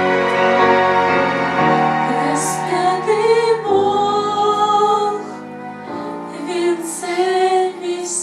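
Female voices singing a slow Russian Christian song with instrumental accompaniment, holding long notes.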